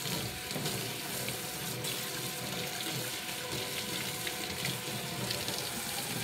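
Kitchen faucet running a steady stream of water into the sink, with small splashes and ticks from things being handled under it.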